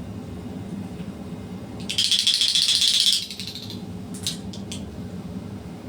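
A quick rattling shake lasting just over a second, followed by a few separate light clicks.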